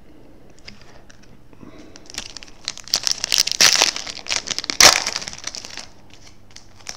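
A trading-card pack wrapper being torn open and crinkled by hand: about two seconds in a burst of irregular crackling and rustling starts, loudest in the middle, and dies away about a second before the end.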